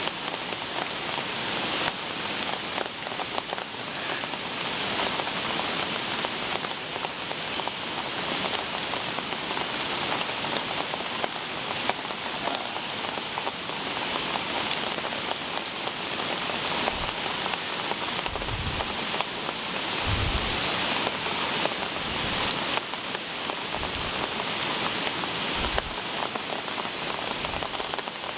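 Heavy tropical rain falling steadily, a dense even hiss. In the second half a few short dull low thumps sound through it.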